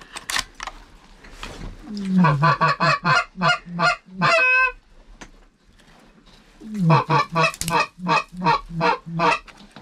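Goose calling: two quick runs of loud honks, about four a second, each honk breaking from a low note up to a higher one. The first run ends in one longer, wavering note.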